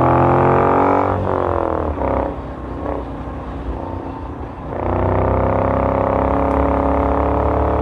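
Pembleton T24's 850cc air-cooled Moto Guzzi V-twin engine under way. Its note falls about a second in and runs quieter and uneven for a few seconds, then comes back strongly at a steady pitch about five seconds in.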